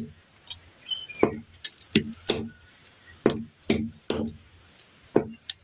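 A blade chopping Chinese olives: sharp, irregular knocks about two a second, each with a short ring that drops in pitch.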